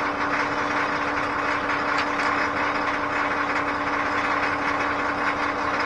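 An engine idling steadily nearby with a constant hum, and one light click about two seconds in.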